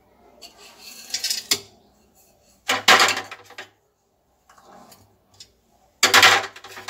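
Chutney ingredients such as roasted chickpeas tipped from small plastic bowls into a steel mixer-grinder jar, rattling against the metal in three short bursts, the later two the loudest.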